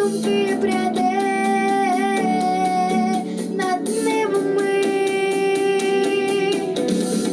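Pop song: a female voice holding long sung notes, each about two seconds, over a backing track with a steady beat.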